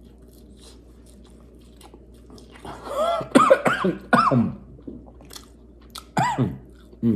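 Chewing a mouthful of egg roll with faint mouth clicks, then a cluster of short, strained vocal sounds that rise and fall in pitch, about three seconds in and twice more near the end: a reaction to the sting of hot mustard.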